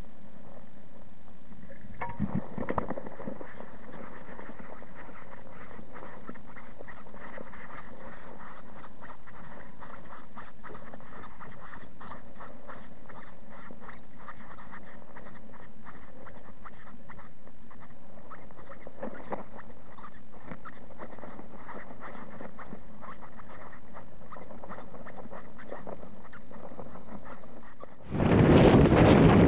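Great tit nestlings begging inside a nest box: a rapid, continuous stream of thin, high-pitched cheeping calls that starts about two seconds in and is loudest in the first half. Near the end it gives way to wind blowing on the microphone.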